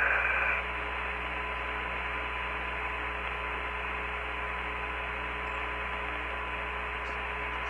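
Open Apollo 15 air-to-ground radio channel between transmissions: steady hiss and hum, with a faint steady tone, and a brief high tone in the first half-second.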